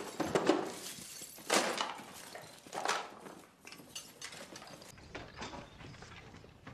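Irregular clattering, clinking and rustling of objects being rummaged through in a wooden chest, with a few sharper knocks in the first three seconds, then fainter handling sounds.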